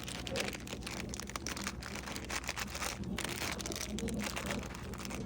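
Plastic snack wrappers crinkling and rustling as packets are handled, in quick irregular crackles, over a steady low hum.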